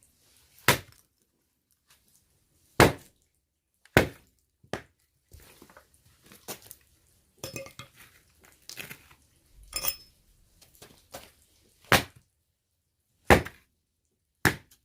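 Firewood being split by hand: about seven sharp chopping strikes at irregular intervals, with lighter knocks and clatter of wood between them in the middle.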